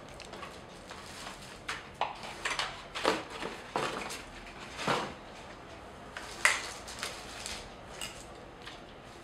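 Unboxing handling noise: a plastic bag crinkling and a cardboard box, its insert and papers being moved, in irregular rustles and light knocks. The sharpest is a single click about six and a half seconds in.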